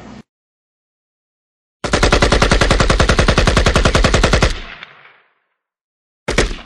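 Machine-gun sound effect: a rapid burst of automatic fire lasting about two and a half seconds, then dying away. A brief loud noise follows near the end.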